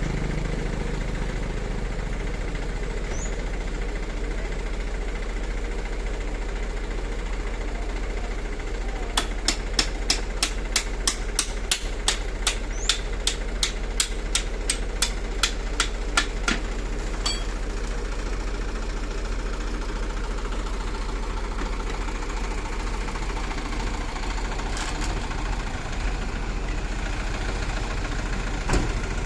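Hydraulic excavator's diesel engine running steadily as it works at backfilling earth. Midway, a run of sharp clicks comes about three a second for several seconds.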